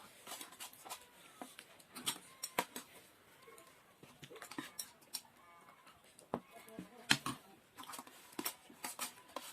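A person eating close to the microphone: irregular chewing with sharp mouth clicks and smacks.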